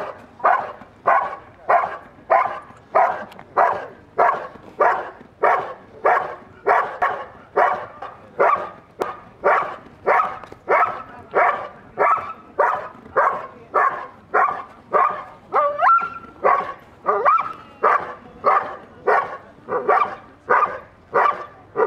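Belgian Malinois barking steadily at a protection helper in a hiding blind, about two sharp barks a second without a break. This is the IPO hold-and-bark, where the dog guards the helper it has found and signals him by barking.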